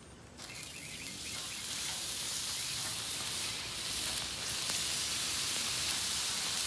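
Seasoned ribeye steaks sizzling on the hot steel of a Camp Chef flat-top griddle. The sizzle starts about half a second in and grows louder over the next couple of seconds as more steaks go down, then holds as a steady hiss.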